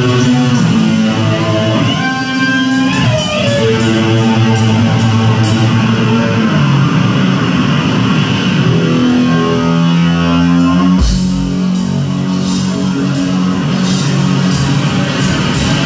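Live rock band: an amplified hollow-body electric guitar plays the opening riff alone, with bent notes. About two-thirds of the way in, the drums and bass come in under it.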